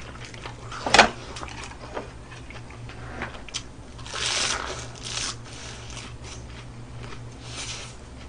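Biting and crunching into a raw iceberg lettuce heart, with a sharp crack about a second in and a louder spell of crunchy chewing about four seconds in.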